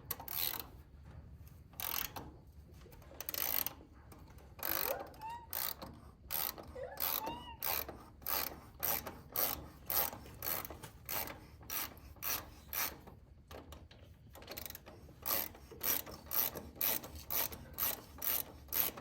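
Socket ratchet clicking in repeated back-strokes as a 17 mm bolt on the cartridge oil filter housing is worked loose. The clicks come quicker and more regularly in the second half.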